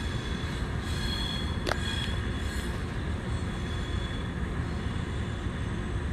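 Electric passenger train pulling away along the station tracks, a steady low rumble with thin, high wheel squeals that fade out about halfway through. A single sharp click comes about a second and a half in.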